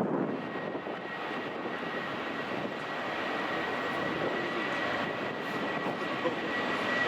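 Jet engines of a Boeing 737-800 (CFM56 turbofans): a steady roar with a high, steady whine that grows louder toward the end.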